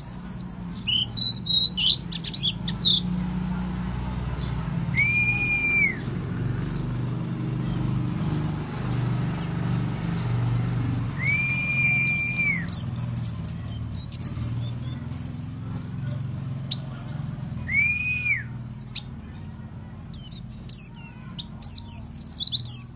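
Pleci (white-eye) singing a lure song: rapid, high twittering chirps, broken three times by a longer arched whistle about a second long. A steady low hum runs underneath.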